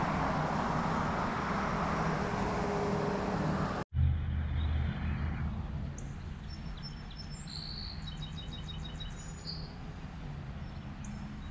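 Steady road traffic noise for about the first four seconds, then a sudden cut to quieter ambience in which small birds chirp, with a quick trill of rapid notes about eight seconds in.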